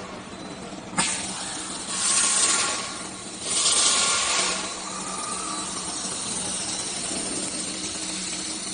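A click, then two short blasts of compressed air hissing, the second a little longer, then a steady machine hum from a CNC router with an automatic tool changer.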